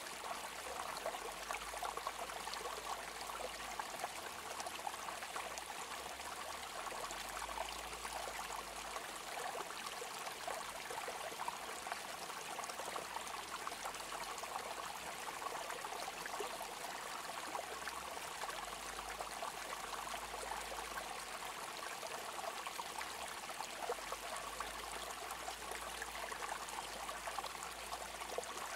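Running water, a stream trickling and babbling steadily without a break.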